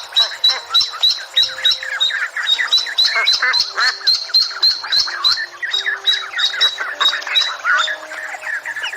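A flock of birds squawking and chirping together: many short calls overlapping in a rapid, dense chorus that thins out a little past halfway.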